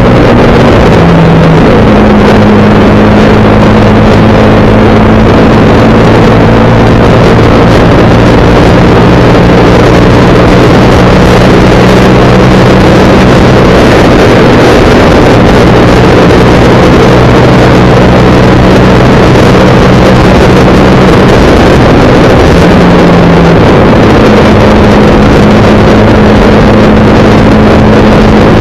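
Motorcycle engine running at cruising speed, heard loud from a camera mounted on the bike, with a steady engine note that shifts pitch about a second in and again near the end, under heavy wind and road rush.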